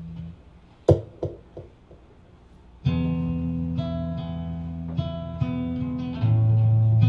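A few sharp knocks about a second in, then an acoustic guitar starts a slow song, its chords ringing on and changing every second or two, with a fuller, deeper chord near the end.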